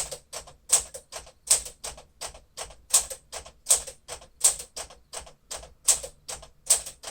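1956 Smith-Corona Clipper manual portable typewriter being typed on at a steady pace, about three key strikes a second, each a sharp typebar clack.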